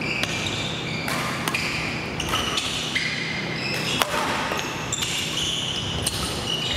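Badminton rally: sharp racket hits on the shuttlecock about once a second, with players' shoes squeaking on the court floor.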